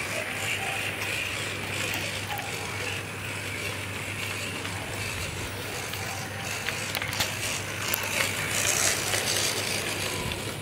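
Miniature model steam locomotive running along its track, its drive mechanism whirring steadily, with scattered small clicks.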